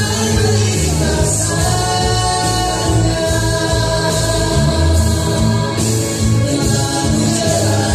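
A Malay pop song: several voices singing together over band backing with strong bass.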